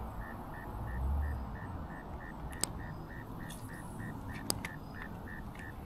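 Steady rhythmic chirping of an insect, short pulses about three times a second, with two sharp clicks a couple of seconds apart in the middle.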